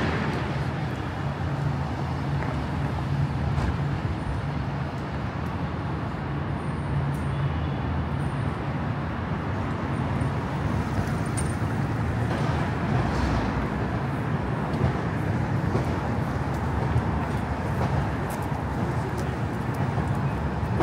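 City street traffic: a steady noise of passing cars and engines, with a low engine hum underneath that comes and goes.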